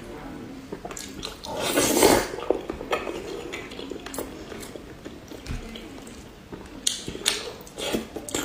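Close-miked eating sounds of pork belly: chewing, with utensils clicking against a dish and a louder noisy swell about two seconds in.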